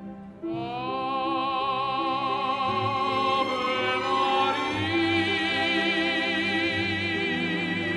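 Operatic singing with orchestral accompaniment: a voice with wide vibrato swoops up into its first note about half a second in and holds long sung notes.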